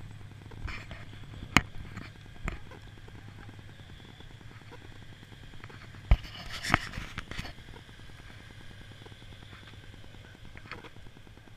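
Footsteps and handling knocks on a body-worn camera while walking across an asphalt lot, a few sharp clicks about a second apart, over a steady low hum.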